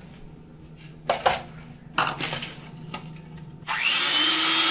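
A few short knocks, then about three and a half seconds in an electric hand mixer switches on and runs with a steady high whine, its beaters working through a bowl of batter.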